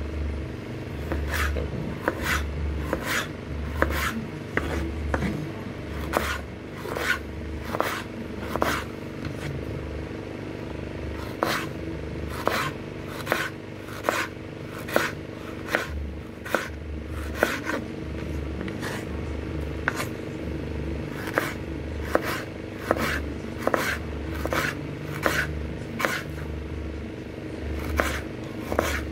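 Kitchen knife slicing a white radish (daikon) on a wooden cutting board: a crisp cut and a sharp knock of the blade on the board about once a second, with a short pause about a third of the way through.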